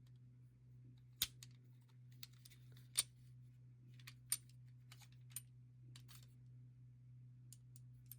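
Scattered small clicks and taps of die-cast toy cars being handled, their opening doors and parts moved and the cars set down, about half a dozen sharp ones at uneven intervals over a steady low hum.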